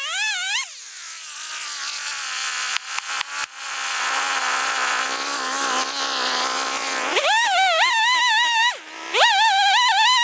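Stihl Wood Boss two-stroke chainsaw. It runs at full revs in the cut, its pitch wobbling under load, then drops to a steady idle for several seconds with a few clicks. About seven seconds in it is revved up again into the stump, with a brief dip to idle near the end.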